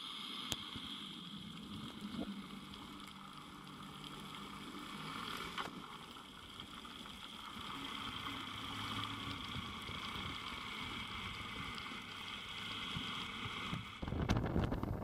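Muffled underwater sound picked up by a camera in its housing: a steady, quiet hiss with a few faint clicks. About fourteen seconds in it switches to loud wind buffeting the microphone and rushing water from an inflatable dinghy under way.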